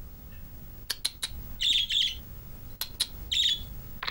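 Budgerigar chirping: a quick pair of short, high chirps about two seconds in and one more near the end. A few sharp clicks fall between them.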